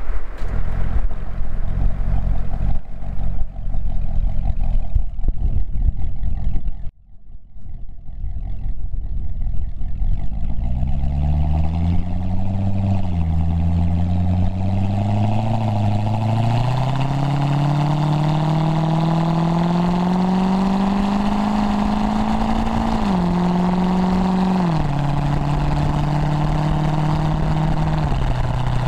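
Corvette V8 through its stock NPP exhaust: a loud low rumble broken by irregular pops for the first several seconds, a sudden brief dropout, then the engine note climbs as the car accelerates, falling back at each upshift. Later it holds steady at a cruise, stepping down twice more with further upshifts.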